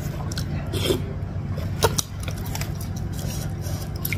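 Wooden spoon and fork scraping and clicking against a ceramic bowl as they break up a large meatball in broth, with sharp clicks about one and two seconds in. A steady low hum runs underneath.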